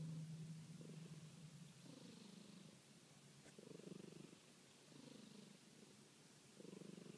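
Domestic cat purring and snoring faintly, a low rumble that swells and fades with each breath, about one breath every one and a half seconds.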